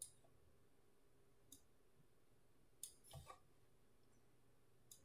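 Faint computer mouse clicks, about five spread over a few seconds, against near silence.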